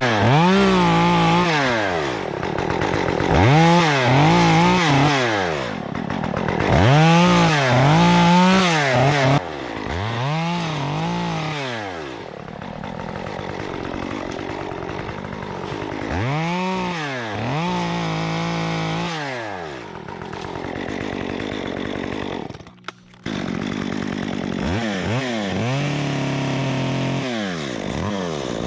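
Stihl MS 194T two-stroke top-handle chainsaw revved up and down in repeated throttle bursts, some held briefly at full speed. Near the end the sound briefly drops out, then the saw picks up again.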